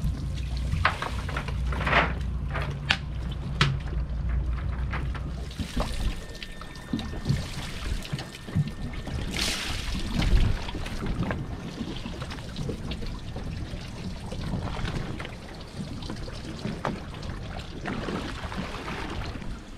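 Seawater splashing, pouring and dripping, with scattered short splashes and knocks, as a wet cast net and a bait dip net are worked over the side of a boat.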